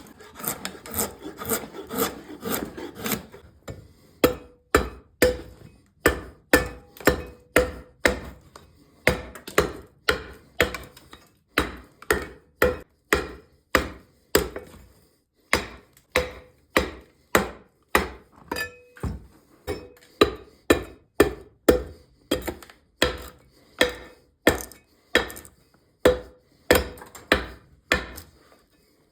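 Oak barrel head being worked with hand tools. For the first few seconds there are quick rasping saw strokes, then a steady run of sharper strokes on the wood with a slight ring, about one and a half a second.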